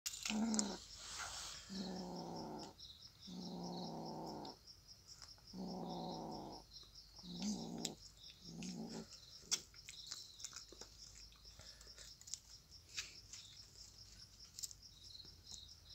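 A cat growling at a mouse it has cornered: six long, low growls of about a second each over the first nine seconds, then only small scuffling clicks. A cricket chirps in a fast, steady rhythm throughout.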